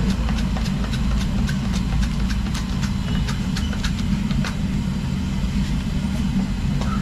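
A steady, low engine-like hum runs throughout, with many scattered sharp clicks and crackles over it, thickest in the first few seconds.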